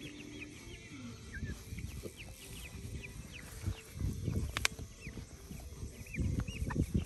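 Six-week-old chickens peeping, many short falling chirps scattered throughout. A few low rumbling bursts rise under them around the middle and again just before the end.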